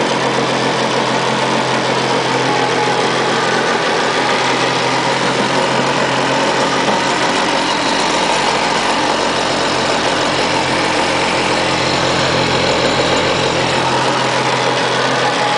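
1988 Kawasaki JS550 stand-up jet ski's two-stroke twin engine idling steadily.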